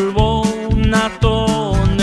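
Norteño band music with no singing: an accordion melody over a steady bass-and-drum beat.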